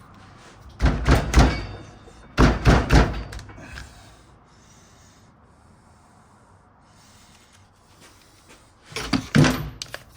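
Hard knocks and clunks as the impact wrench's housing and internal parts are pushed and tapped together during reassembly. They come in three short clusters: about a second in, about two and a half seconds in, and near the end.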